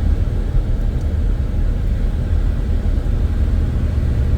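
Steady low rumble of motor vehicle traffic or an engine, with a low hum setting in about three and a half seconds in.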